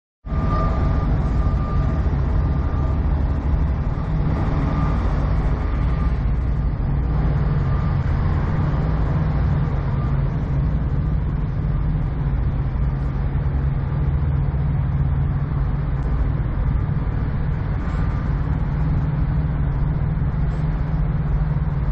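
Idling diesel truck engine: a steady low drone that holds level throughout, with a faint high whine over it for the first few seconds.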